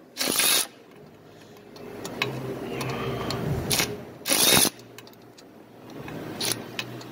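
Milwaukee Fuel cordless ratchet with a swivel socket running on a flywheel bolt in short trigger bursts, two loud half-second runs about four seconds apart, with quieter running between.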